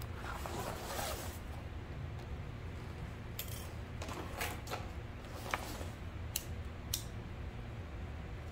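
A tote bag's canvas and faux-leather vinyl rustling as it is slid and handled on the table. This is followed by about six small, sharp clicks spread over a few seconds.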